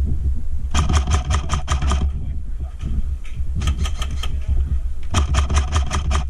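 Airsoft gun firing on full auto in three rapid bursts, each a quick run of sharp clicks about a second long, over a steady low rumble.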